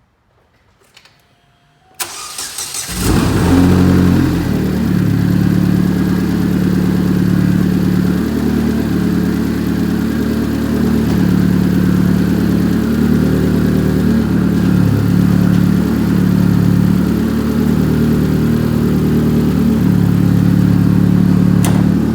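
Big-turbo Chevrolet Cobalt SS four-cylinder engine cranking briefly and catching about three seconds in. It flares up and settles into a steady idle. This is the first start after its spark plugs were cleaned and re-greased to cure a misfire.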